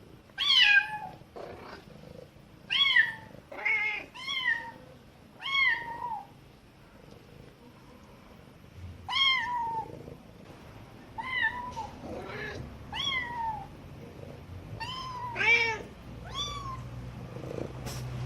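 Kitten meowing over and over: about a dozen short, high calls, each falling in pitch, with gaps between them. A few fainter, lower calls in between are the mother cat answering.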